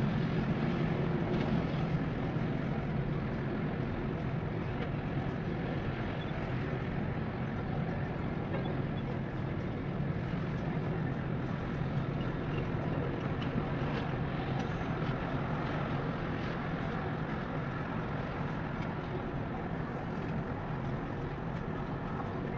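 Steady outdoor background rumble with a low hum underneath, getting gradually a little quieter, with no distinct events.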